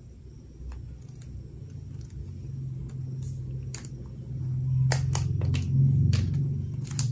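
Handling noise as hands grip and turn over a tablet: a low rumble that grows louder, with a string of sharp clicks and taps crowding the second half.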